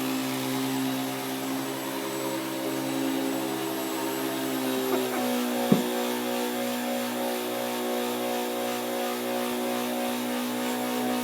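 Vacuum cleaner running with a steady motor hum. About five seconds in, the motor's pitch shifts, and a single sharp knock follows just after.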